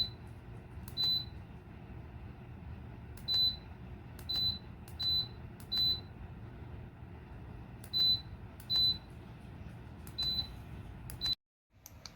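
Ceramic space heater's control panel beeping as its buttons are pressed: about nine short, high beeps at uneven intervals, over a steady low hum. Near the end the sound cuts out for a moment.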